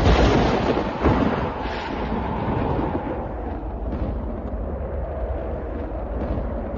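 Thunder: a sharp crack right at the start and another about a second later, followed by continued low rumbling.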